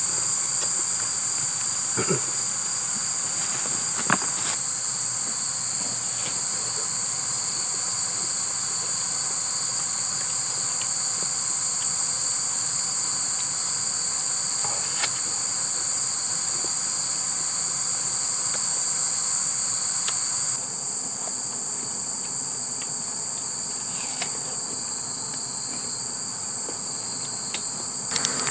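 Evening insect chorus of crickets, a loud steady high-pitched chirring at two pitches, with a few faint clicks.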